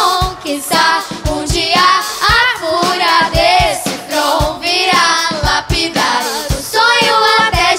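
Live band music: several young girls singing a pop song together into microphones over electric guitar and a steady drum beat.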